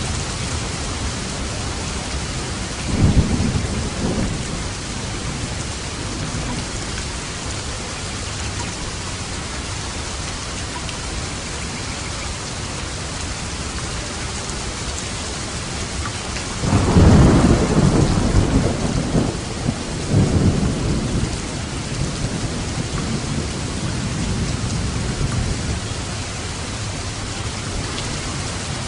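Steady heavy rain falling, with thunder rumbling twice: a short roll about three seconds in, then a longer, louder roll with several swells a little past the middle.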